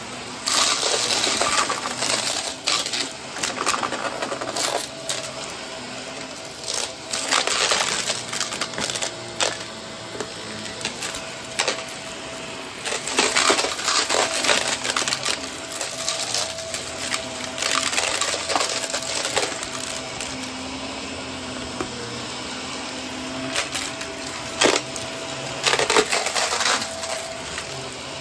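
Vacuum cleaner running steadily while it sucks up crunchy debris, which crackles and rattles in irregular bursts.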